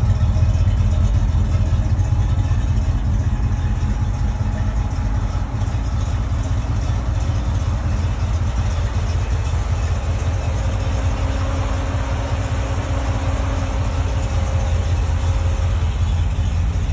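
1978 Ford Bronco's 400M V8, fitted with a four-barrel Edelbrock carburettor, idling with a steady low rumble.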